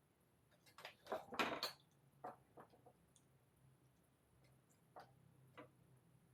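Small metal parts of a patio heater's pilot light assembly being handled: a quick cluster of clicks and scraping about a second in, then a few light, scattered clicks.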